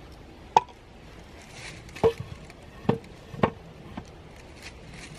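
Four sharp knocks on the wooden poles of a log-pole table, spaced unevenly, the first about half a second in and the last about three and a half seconds in.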